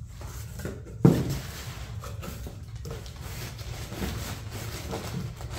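Handling noise from unpacking: packing paper and plastic wrap rustling as a wrapped part is lifted out of a cardboard box, with a short, sudden knock about a second in.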